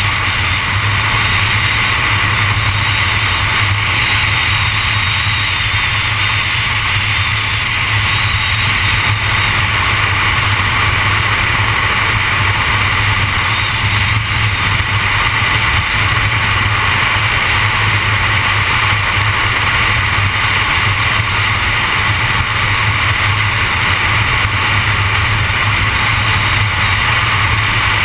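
Vehicle driving steadily at highway speed: an unbroken rush of road and wind noise over a low engine drone, with no change in speed or pitch.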